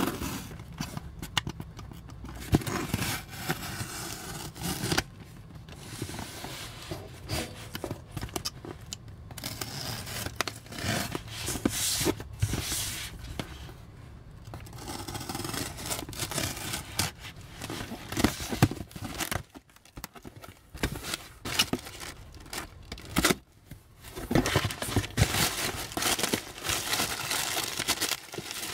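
Snap-off utility knife slicing and scraping through packing tape along the seams of a cardboard box, in irregular bursts with short pauses. Near the end, tape is peeled and torn off the box flaps.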